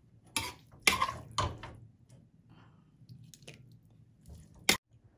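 Stir-fried minced pork and vegetables spooned from a wok onto a plate with a metal spoon: three wet plops and scrapes in the first two seconds, then faint taps of the spoon, and a sharp click near the end.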